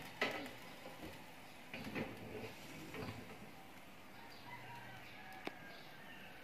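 Scattered metal clicks and knocks of an oven's rotisserie spit and wire rack being handled and seated inside the oven cavity.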